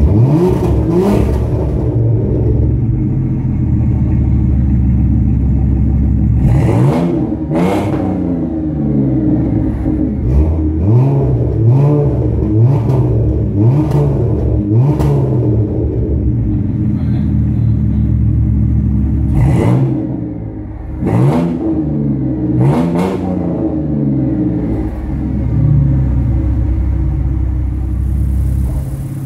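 Car engines idling with repeated throttle blips, each rev climbing and falling back: single sharp revs near the start, around a quarter of the way in and again about two thirds through, and a quick run of about six revs, roughly one a second, in the middle. The cars are a Ford Mustang with a 3.8-litre V6 and a Volvo XC90 with a 2.9-litre twin-turbo straight-six, revved through their exhausts.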